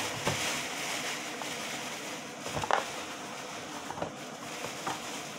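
Thin plastic bag rustling as chunks of cut beef foot are tipped out of it into a plastic basin, with a few knocks as the pieces land, the loudest about two and a half seconds in.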